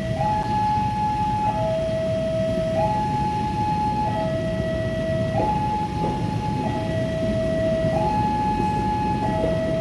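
Two-tone hi-lo siren or warning alarm, switching back and forth between a higher and a lower note about every 1.3 seconds, over a steady low rumble.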